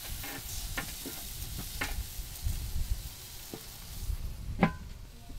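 Chicken and steak skewers sizzling on the hot grate of a Weber Q gas grill as they go on, with a few sharp metal clicks of the tongs, the loudest near the end.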